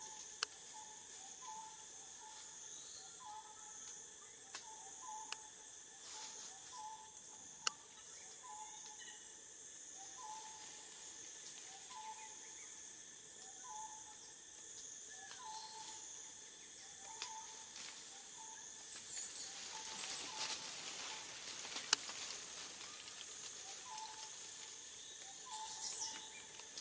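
Forest ambience: a steady, high-pitched insect drone with a pulsing beat, and a short animal call repeated about every second and a half. A few sharp clicks sound, and louder hissy bursts come a little after two-thirds of the way through and again near the end.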